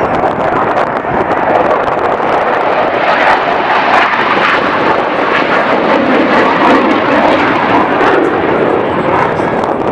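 Hawker Hunter jet fighter's turbojet engine, loud and steady as the aircraft flies its display.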